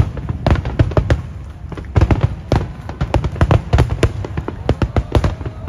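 Fireworks barrage: aerial shells bursting in quick succession, several sharp bangs a second over deep booms.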